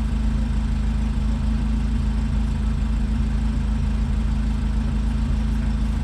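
C8 Corvette Z06's 5.5-litre flat-plane-crank V8 idling steadily, heard from inside the cabin.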